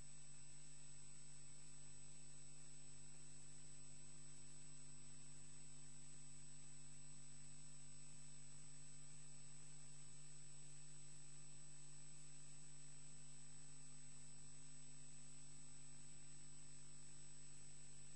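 Steady electrical hum with a thin, high-pitched whine above it, unchanging throughout, and no other sound.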